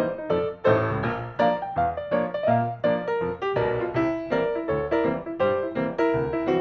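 Background music: a piano or electric-piano melody with a steady beat.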